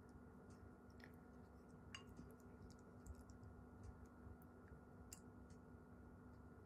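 Near silence: faint room tone with a steady hum, broken by a few faint clicks of a wooden spoon touching and scraping a ceramic plate as it scoops up food.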